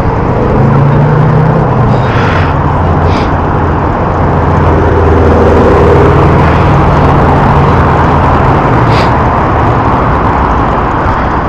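Road traffic on a multi-lane city road heard from a bicycle riding beside it: cars passing, with a low engine hum that swells and fades over most of the stretch, over a steady rush of wind and road noise.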